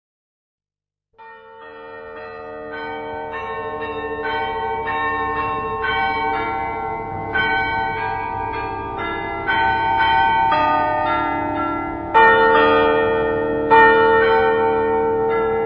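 Church bells ringing a peal, overlapping strokes about twice a second. The ringing starts about a second in, grows louder, and has two louder strokes near the end.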